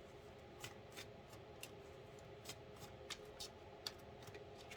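Faint, irregular light clicks and ticks of tarot cards being handled, about a dozen in all, over a low steady room hum.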